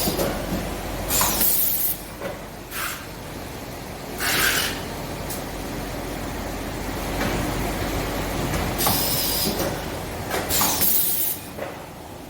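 PE-sleeve shrink-wrapping machine running: a steady machine hum broken by short hissing bursts every few seconds.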